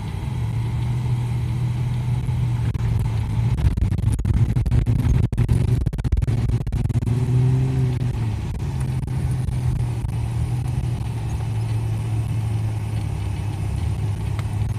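Vehicle engine running steadily under load, revving up and back down twice between about four and eight seconds in, with scattered knocks and rattles as it drives over rough ground.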